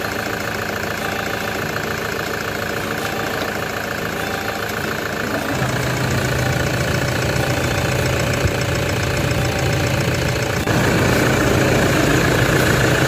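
Toyota Hilux D-4D diesel engine idling steadily, just started after an oil and filter change to check for leaks. The sound changes abruptly twice, about five and a half and ten and a half seconds in, and is louder after the second change.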